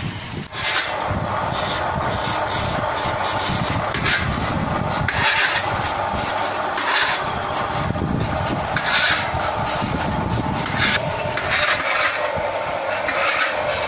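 YES240E small electric water-well drilling rig running as it drills, a steady mechanical hum that sets in abruptly about half a second in, with a harsher noise swelling every second or two.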